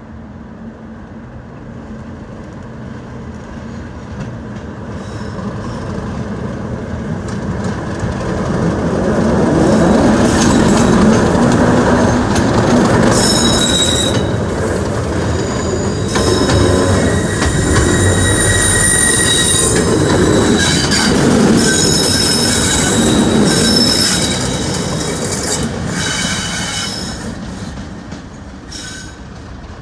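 Class 37 diesel locomotive passing close: its English Electric engine and wheels build up, run loud and then fade as it moves away. High squealing tones from the wheels come and go through the middle stretch.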